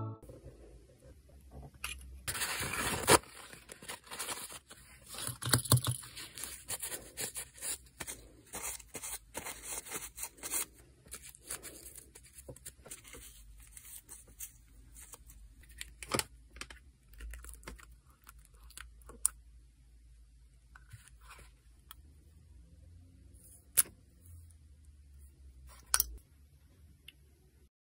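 Close-up handling sounds of nail-art work: a rustling tear about two to three seconds in, then scattered scrapes and taps, with a few sharp clicks in the second half.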